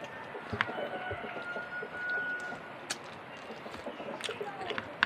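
Quiet outdoor background with faint bird and chicken calls: one thin, steady whistle-like note held for about a second around two seconds in, and a few scattered sharp clicks.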